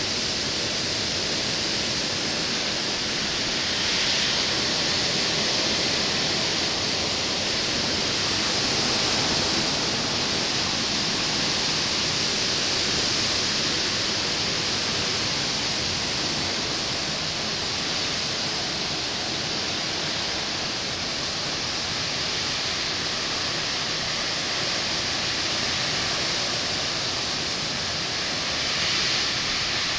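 Hurricane wind rushing through leafy trees: a steady hiss that swells in gusts about four seconds in, around nine seconds, and just before the end.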